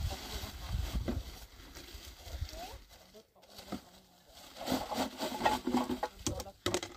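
Plastic sacks rustling and crinkling as rubbish and plastic bottles are picked up and pushed into them, with a few sharp clicks near the end.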